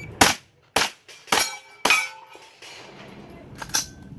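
Rapid 9mm gunshots from a PSA AR9 carbine, five shots: four about half a second apart, then a pause of nearly two seconds before another shot. Short metallic rings follow some shots as bullets hit steel targets.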